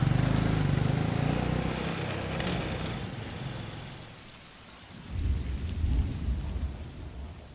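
Steady rain falling, while a motorcycle's idling engine fades out in the first two seconds. A deep low rumble swells about five seconds in and dies away near the end.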